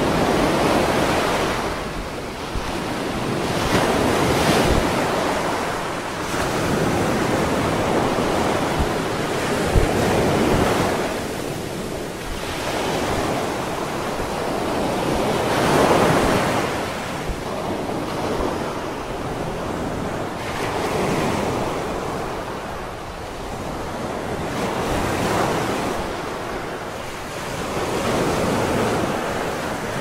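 Ocean surf breaking on a sandy beach, the wash swelling and ebbing as waves come in every few seconds, with wind buffeting the microphone.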